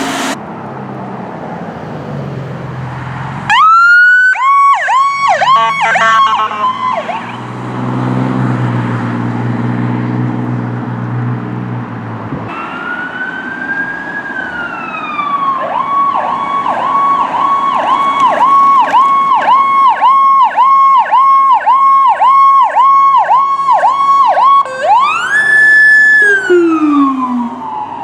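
Emergency vehicle siren sounding the Powercall tone: a held high pitch broken by quick repeated dips, about two a second, between slower wails that rise and fall. A lower steady drone sits under the siren partway through.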